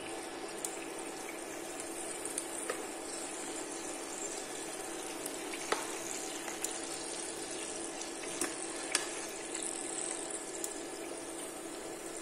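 Haddock fillets frying in hot vegetable oil, a steady sizzle with a few sharp clicks and pops scattered through it.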